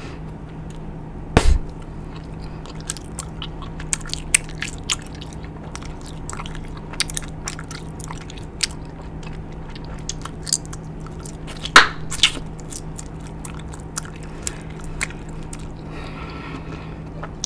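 Bubble gum being chewed close to the microphone: wet smacks and clicks at an uneven pace, with a few louder sharp snaps, the loudest about twelve seconds in, over a steady low hum.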